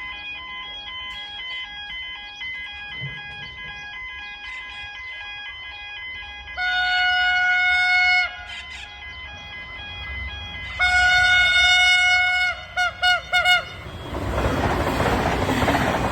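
V/Line VLocity diesel railcar sounding its horn as it approaches at speed: faint steady tones at first, then a loud long blast about six and a half seconds in, a second long blast about four seconds later and three quick toots. Then comes the loud rush of the train speeding through the station.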